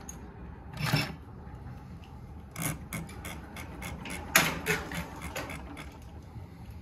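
Scattered clicks, knocks and rubbing from hands adjusting parts and thread on a Consew 339RB-4 walking foot industrial sewing machine, not running. A few irregular knocks, the loudest about four and a half seconds in.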